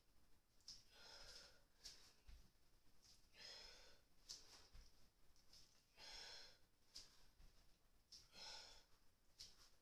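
A person breathing hard during kettlebell lunges: four heavy breaths out, about two and a half seconds apart, with short faint clicks between them.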